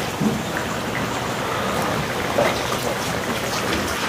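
Pork pieces frying in lard in a large tacho over a wood fire: a steady sizzle with many small pops and crackles, a faint "chiadinha" that shows the batch still holds some moisture and is not quite done.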